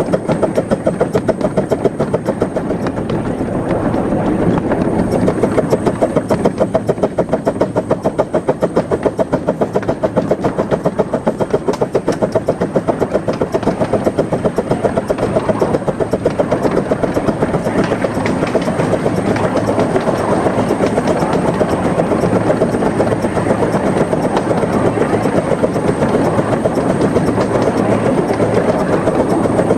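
Krupp 15-inch-gauge 4-6-2 Pacific steam locomotive No. 1663 Männertreu running along, its exhaust beating rapidly and evenly, with the wheels on the rails.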